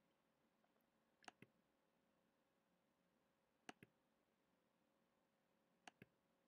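Three faint computer-mouse clicks about two seconds apart, each a quick pair of ticks, over near silence.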